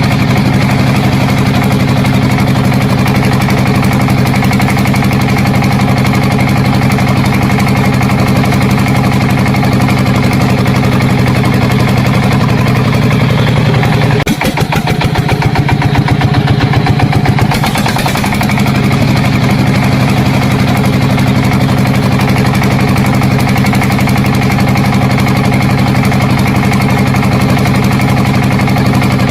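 An engine running steadily at a low, even drone. Its sound shifts for a few seconds about halfway through, then settles back to the same steady running.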